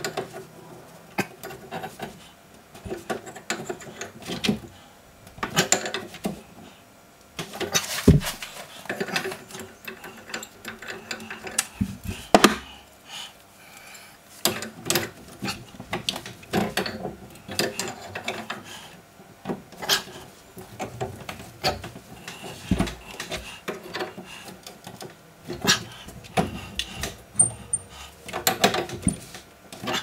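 Adjustable spanner working the nuts of an old stopcock on its pipework: irregular metallic clicks, taps and scrapes as the nuts are slackened and the valve is twisted round, with a couple of sharper knocks.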